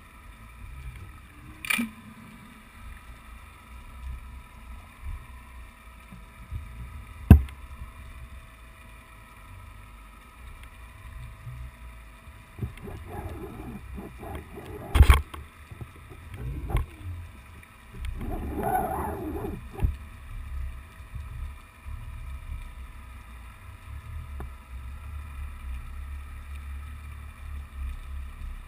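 Muffled underwater sound from a GoPro in its waterproof housing, dropped down on the sea bottom: a steady low rumble of moving water with a faint hum, three sharp knocks (the loudest about fifteen seconds in), and two short rushing bursts.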